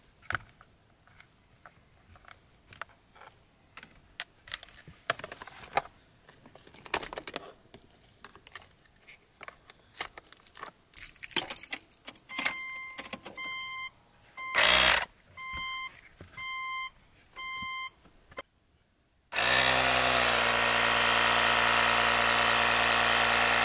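Rustling and clicks, then a series of short electronic beeps, then a portable tire inflator's compressor starts suddenly and runs loudly and steadily, pumping up a car tire that is down to about 18 psi, half its proper pressure.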